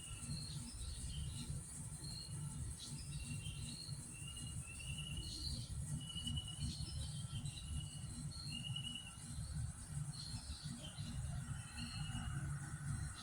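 Outdoor natural ambience: short trilled chirps repeating about once a second, over a steady high-pitched hiss and a low rumble.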